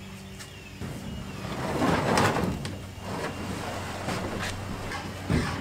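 Plastic kayak hull scraping and sliding over a pickup's tailgate and bed, swelling about two seconds in, with a few light knocks.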